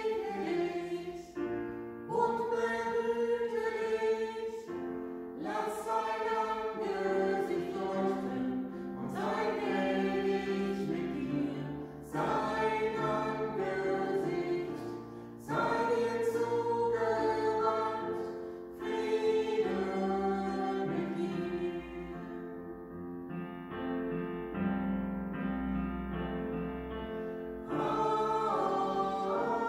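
A small group of singers singing a song in harmony to keyboard accompaniment, in phrases of a few seconds each, with a softer passage about three-quarters through.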